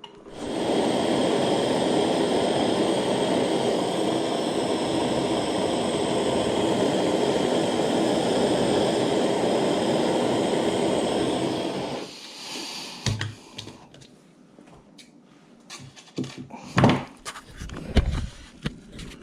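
Jeweler's soldering torch burning with a steady rushing hiss for about eleven seconds, then shut off suddenly. A few light knocks and clicks follow.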